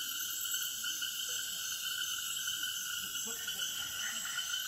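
Steady night chorus of frogs and insects, several high-pitched trills layered over one another without a break.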